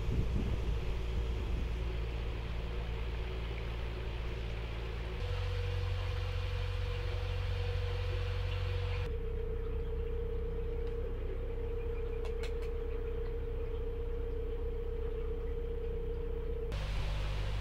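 Narrowboat diesel engine running steadily under way, a low drone with a steady hum above it. The tone changes abruptly about five seconds in, again about nine seconds in, and near the end.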